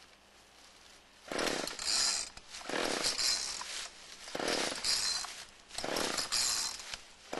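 Gas chainsaw being pull-started: four quick yanks on the recoil starter cord, about a second and a half apart, each turning the engine over without it catching. The saw is failing to start.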